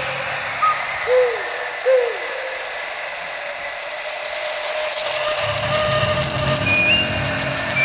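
Hand-played percussion soundscape imitating weather and critters: a steady rain-like hiss of shaken or rolled instruments thickens and brightens about four seconds in. Two short, falling chirps come early, and a thin, steady high whistle tone enters near the end.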